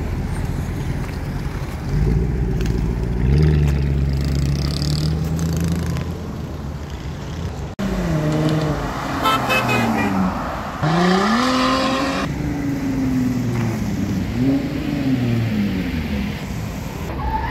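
Mercedes C63 AMG V8 running at idle, then revved and held at a steady high rpm for a few seconds. After a sudden break, a car engine is revved again and again, its pitch sweeping up and down.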